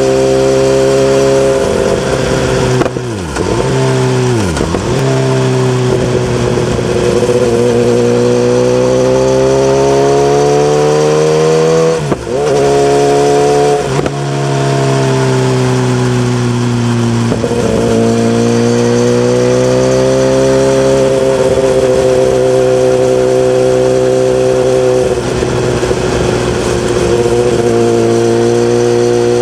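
Motorcycle engine heard from on board while riding, its pitch climbing slowly under throttle and dipping sharply several times as the rider shifts gears or rolls off the throttle.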